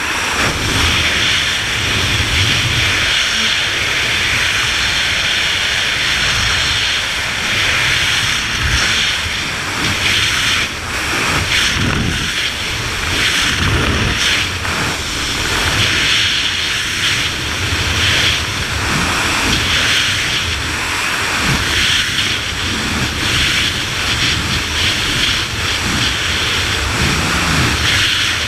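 Freefall wind rushing over the camera's microphone: a loud, steady rush of air noise with a low rumble beneath it.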